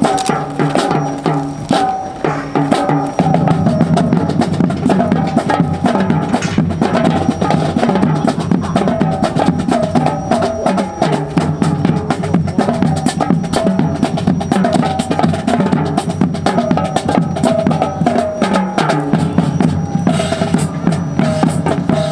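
Marching drums playing a fast, continuous cadence, with bass and snare drums and sharp wood-block-like clicks; it gets fuller and denser about three seconds in.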